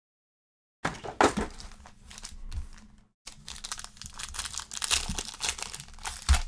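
Foil wrapper of a trading card pack crinkling and tearing as it is opened by hand and the cards are worked out of it. The sound cuts out completely for the first second and again briefly about three seconds in.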